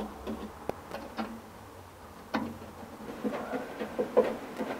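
Screwdriver working on screws in the windshield's centre bar and frame: a scattering of small clicks, taps and scrapes of metal, one sharper tap about halfway through and several more close together near the end.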